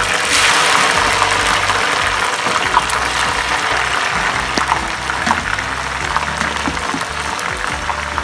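Raw jackfruit strips deep-frying in hot oil: a loud, dense sizzle and crackle that starts as the strips go into the oil and eases gradually as the frying settles.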